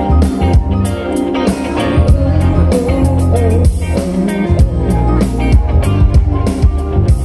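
Live pop-rock band playing: electric guitars, bass, keyboard and drum kit, with a steady beat.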